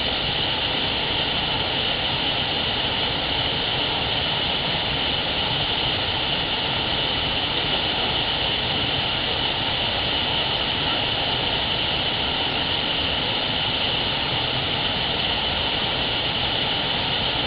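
Small waterfall on a rocky stream, water rushing steadily over the rocks, heard through a trail camera's microphone.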